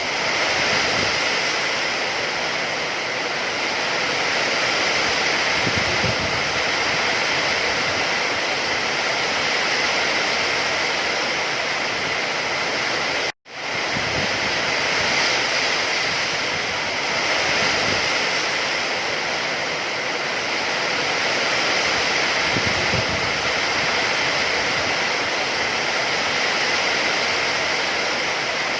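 Steady, even hiss of heavy rain. It cuts out for an instant about halfway through, then resumes at the same level.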